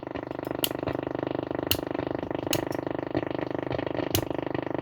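Cossor CR4212A valve radio on the shortwave band, its loudspeaker giving a steady, fast-pulsing buzz of electrical interference. Sharp clicks cut through it every second or so.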